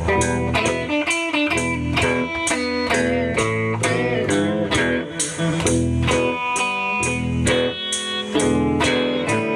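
Live blues music: electric guitar playing a phrase over a steady beat and bass, with no singing.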